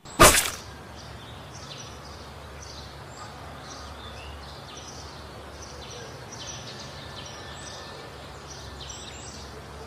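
A short, loud burst of noise at the very start, then steady outdoor background noise with birds chirping over and over and a low, steady hum underneath.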